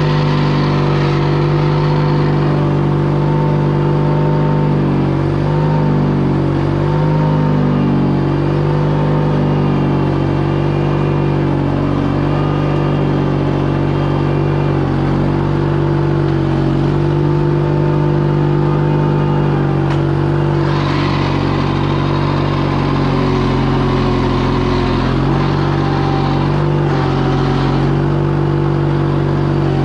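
Case 1816 mini skid steer's engine running steadily under load, its pitch dipping and recovering as it works. A squalling drive belt on one side of the machine, a fault not yet fixed, rings over it at times.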